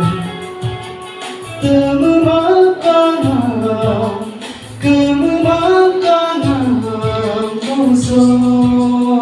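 A song: a sung melody over a steady beat.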